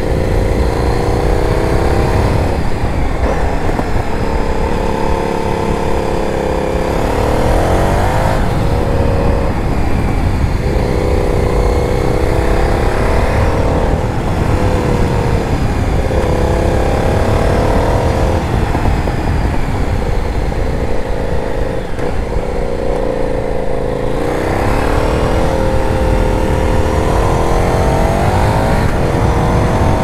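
KTM 990 Super Duke's 75-degree V-twin engine heard from the rider's seat, its pitch rising and falling about eight times as the throttle opens and closes through the bends. A steady rush of wind and road noise runs underneath.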